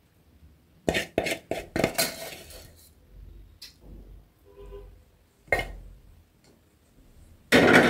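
A wooden spoon knocking and scraping against dishes as cooked greens are served onto ugali: a cluster of clatters about a second in, another knock past halfway, and the loudest clatter near the end.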